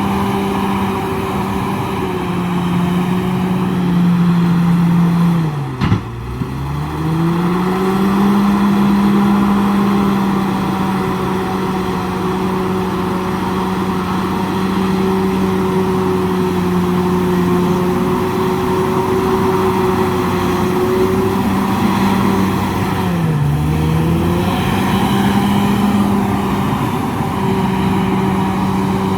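Komatsu D68ESS crawler bulldozer's diesel engine running steadily at high revs while working. Its pitch drops sharply and climbs back twice, about six seconds in and again about twenty-three seconds in.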